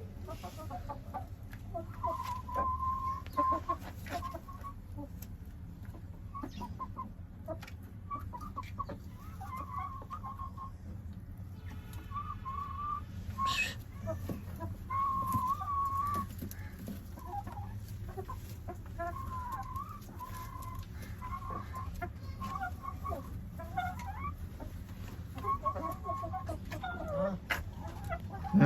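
Chickens clucking, many short calls overlapping throughout, over a steady low hum. There is one sharp click about halfway through.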